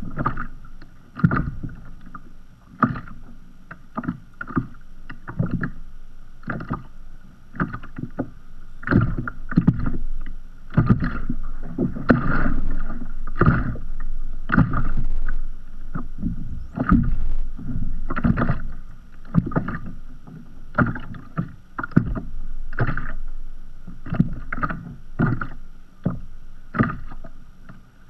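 Small sea waves lapping and slapping against a kayak's hull, in irregular slaps about one or two a second over a low wash of water.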